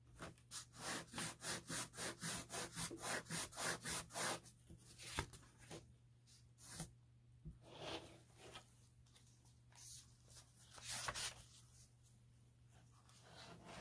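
Fingers in nitrile gloves rubbing a sheet of blotter paper back and forth over a notebook page, pressing it onto wet fountain-pen ink. The rubbing starts with a quick, even run of about five strokes a second for some four seconds, then gives way to a few slower rubs and paper handling.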